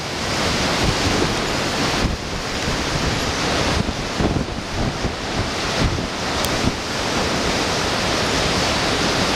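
Strong storm winds gusting hard against the microphone and rushing through the trees as a wedge tornado passes close by, a steady roar that swells and dips with each gust.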